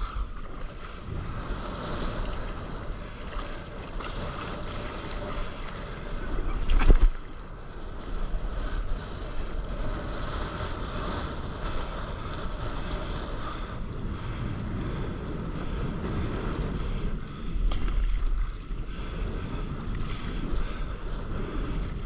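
Wind buffeting an action camera's microphone just above choppy sea water around a stand-up paddleboard, a steady rushing noise with deep rumble. A sudden loud hit about seven seconds in.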